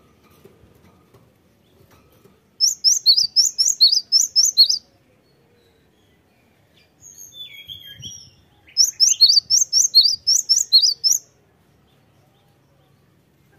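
Cinereous tit singing: two bursts of a rapid, repeated two-note whistled phrase, high then low, each about two seconds long. A softer, lower call comes between them.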